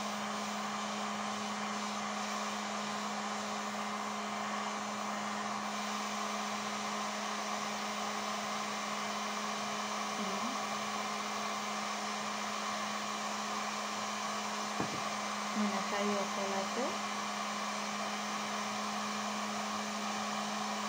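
Electric heat gun running steadily, a hissing rush of air with a constant low hum, used to soften izolon foam petals for shaping. A few faint handling sounds come in about three-quarters of the way through.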